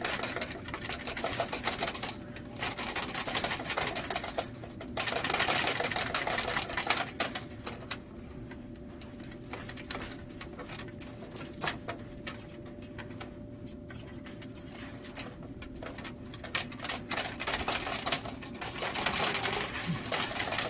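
Steel fish tape rattling and scraping inside a dryer vent duct as it is wiggled back and forth to loosen built-up lint, coming in irregular bursts of dense clicking with quieter spells between.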